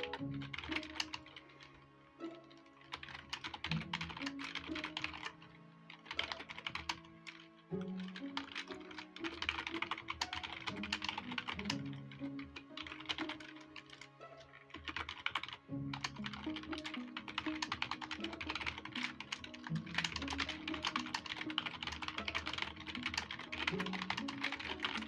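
Typing on a computer keyboard, rapid key clicks in runs broken by brief pauses, over quiet background music.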